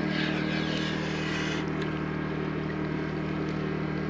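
A steady, low engine hum runs without a break. Over the first second and a half, a brief higher whirring hiss sweeps across it.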